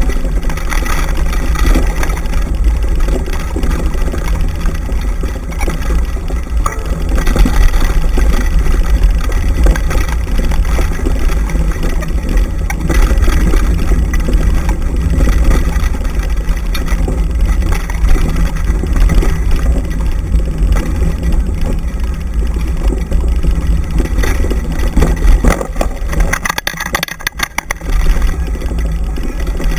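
Continuous heavy rumble of wind on the microphone and a wheeled dryland mushing rig rolling fast over a bumpy forest dirt trail, with small knocks and rattles from the bumps. It dips briefly near the end with a quick run of clicks.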